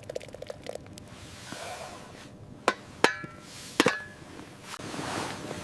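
Three sharp knocks, the second and third with a short ringing tail, after a patter of small clicks.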